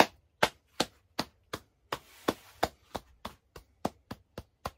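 A man clapping his hands in a slow steady clap, about fifteen sharp claps, the first the loudest, quickening slightly toward the end.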